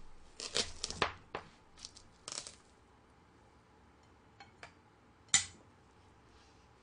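Kitchen knife cutting through the rind of a small apple watermelon, several crisp crunching, cracking strokes as the melon splits in two. A couple of light taps follow, then one sharp click about five seconds in.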